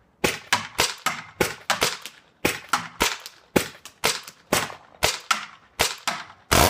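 Paintball marker firing rapidly: about twenty sharp pops, roughly three a second in short strings, each with a brief ringing tail.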